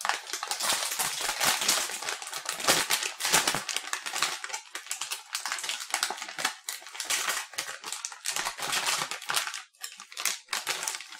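Sealed plastic snack bag of rice crackers crinkled and handled right against the microphone: dense, continuous crackling full of sharp clicks.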